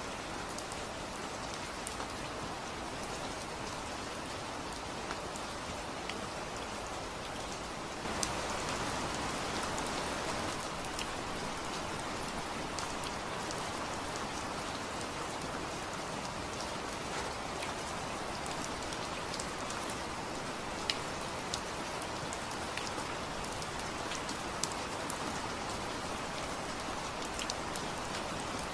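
Steady rain falling, with individual drops clicking sharply now and then. It becomes slightly louder and fuller about eight seconds in.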